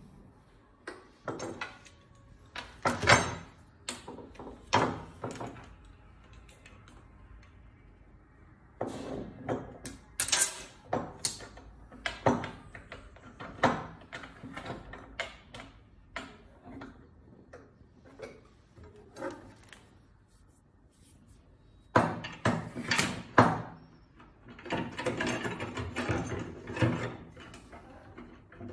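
Laboratory clamps, metal rods and a beam being handled and fitted together on a bench: irregular clanks, knocks and clicks in clusters, with a longer scraping stretch near the end.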